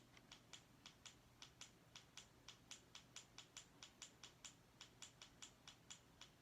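Faint, rapid clicking, evenly spaced at about four or five clicks a second, against near silence.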